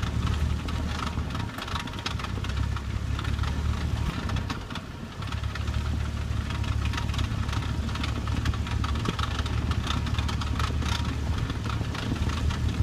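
2015 Volkswagen GTI idling with its six-speed DSG gearbox, a rapid, irregular clicking rattle over the steady low engine hum. The rattle is the noise the owner puts down to the DSG. The hum fades briefly about a third of the way in.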